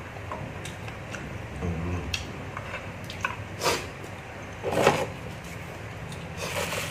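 Someone eating instant noodles: light clicks of a spoon and chopsticks against the pot, chewing, and a couple of louder brief mouth noises about halfway through, over a low steady hum.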